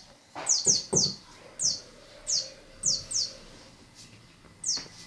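A grey plush toy mouse squeaking over and over as a cat grabs and kicks it: about nine short, high chirps, each falling in pitch, with a few dull thumps from the cat's grappling in the first second.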